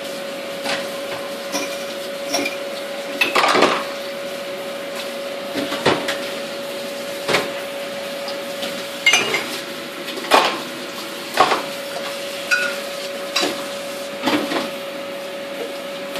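Irregular metal clinks and knocks of pots, lids and utensils, about one a second, some ringing briefly, over a steady hum and hiss.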